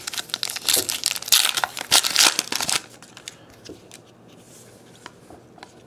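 The foil wrapper of a 2012-13 Prizm basketball card pack crinkling as it is torn open, dense crackling for about three seconds. After that come only a few soft ticks of cards being handled.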